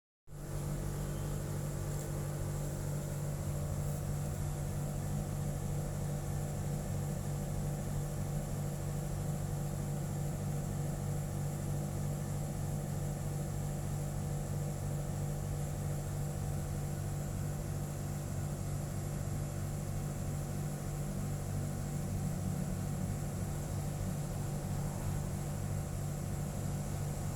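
A steady mechanical hum, unchanging throughout, with a low drone and a faint hiss above it.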